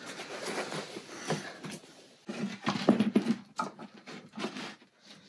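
Handling noise: rustling in a leather tool-belt pouch, then irregular knocks and scuffs as a plywood block is handled on the plywood floor, loudest about three seconds in.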